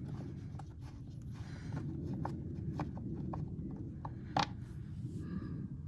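Scattered light clicks and taps of a socket wrench working the fasteners of a Silverado's air-filter housing, the sharpest about four and a half seconds in, over a steady low rumble.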